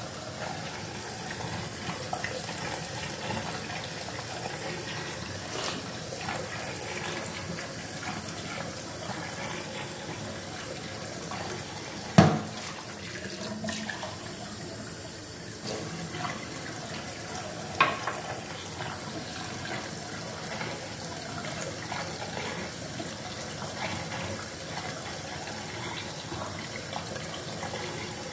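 Water running steadily from a tap into a stainless-steel sink. Two sharp knocks stand out, about twelve seconds in and again about six seconds later.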